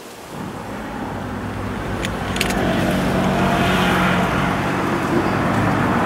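A motor vehicle's engine running nearby, growing louder over the first three seconds and then holding steady. Two sharp clicks come about two seconds in.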